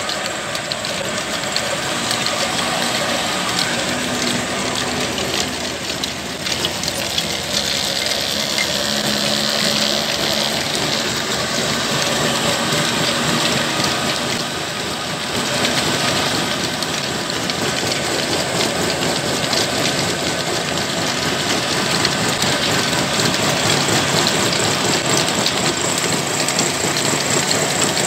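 Old 25 HP diesel engine running steadily under load, turning a line shaft whose flat belts and pulleys drive several mill machines at once. The engine's sound is mixed with a dense, even clatter from the belts and machinery.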